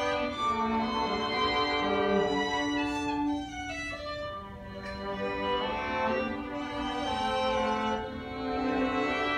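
String quartet (two violins, viola and cello) playing together live, several bowed voices holding sustained notes, with the music briefly quieter about four seconds in.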